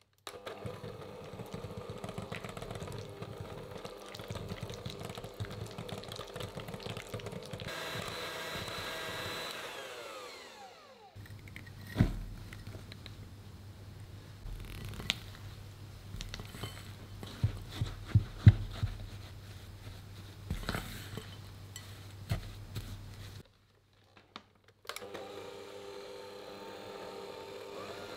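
Electric hand mixer beating butter in a glass bowl: its motor runs steadily, then winds down and stops about ten seconds in. This is followed by a series of sharp knocks and clinks, and the mixer starts up again near the end.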